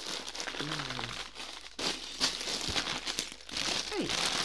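Sealed plastic bags of LEGO pieces crinkling as they are picked up, shuffled and set down, in irregular bursts of rustling.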